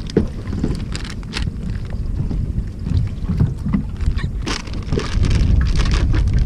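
Wind on the microphone over a steady low rumble, with short crinkles and rustles of a plastic bag being handled; the rumble grows louder about five seconds in.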